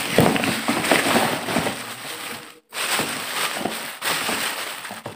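Thin plastic bag crinkling and rustling close to the microphone, a dense run of small crackles and clicks that breaks off briefly about halfway.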